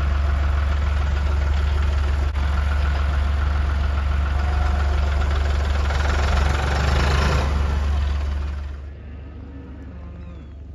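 Farm tractor engine running steadily close by while it sets a round hay bale into a ring feeder, a loud low hum; about nine seconds in it becomes much quieter.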